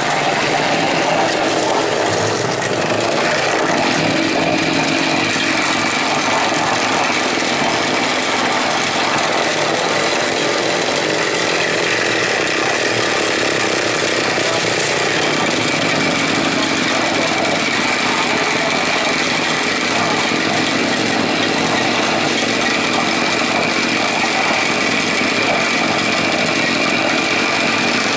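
Electric lassi churner running steadily, its motor-driven steel shaft spinning in a covered steel pot and whipping curd into froth.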